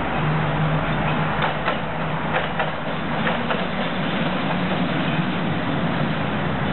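Tram in motion: steady running noise with a low hum, and a run of short clicks and rattles between about one and four seconds in.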